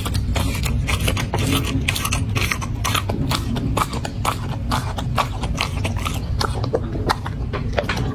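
A corgi chewing and crunching its food, with quick, irregular crunches several times a second.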